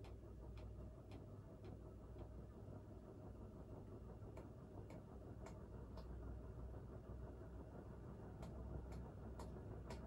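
A Crompton Greaves High Breeze 56-inch ceiling fan runs faintly on medium speed with a low hum and a rush of air. Light ticks come irregularly, about two a second in clusters. The owner puts this down to the fan shaking and its tightened canopy rubbing against the wooden mount.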